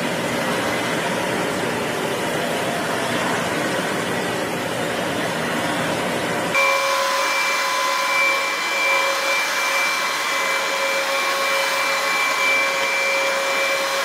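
Stick vacuum cleaner running steadily on bedding, its floor head fitted with a wire-grid cover, giving an even rushing noise. About six and a half seconds in, the sound switches to a second stick vacuum on a blanket, which adds a steady high-pitched motor whine.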